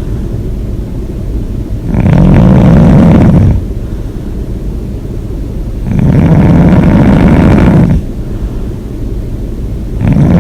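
A person snoring hard with the mouth open. Three loud snores come about four seconds apart, each one and a half to two seconds long, with a quieter stretch between them; the third starts near the end.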